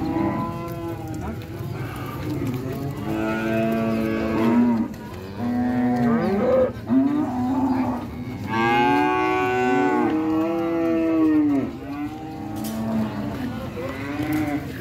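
Several cattle mooing, long calls that rise and fall in pitch, following and overlapping one another almost without pause. The loudest call comes about nine seconds in.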